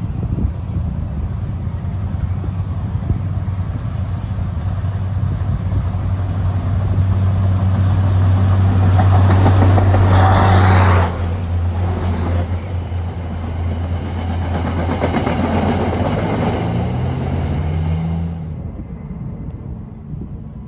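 MBTA Commuter Rail diesel locomotive approaching and passing beneath, its engine's steady low drone growing louder to about ten seconds in, then dropping off sharply as it goes under. The coaches then roll past with wheel and rail noise, until the sound cuts off suddenly near the end.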